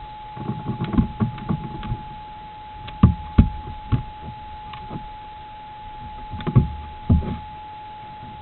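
A young stone marten moving about inside a wooden box, its body and feet knocking and scrabbling against the floor and walls. There is a flurry of bumps in the first two seconds, a few sharper knocks around three to four seconds in, and two more thuds near the end, over a steady thin electronic whine.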